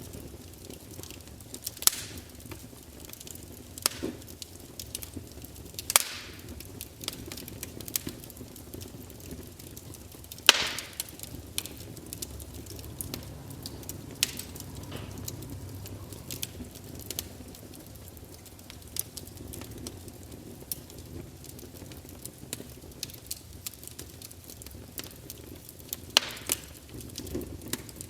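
Campfire burning, crackling steadily with scattered sharp pops and a few louder snaps.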